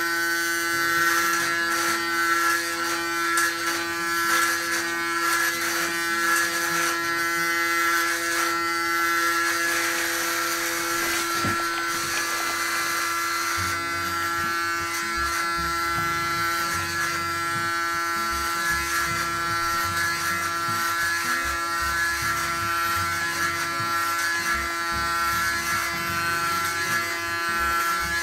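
Electric hair clippers running steadily at one constant pitch while cutting short hair on the back and sides of a head. A fainter, irregular low rumble joins about halfway through.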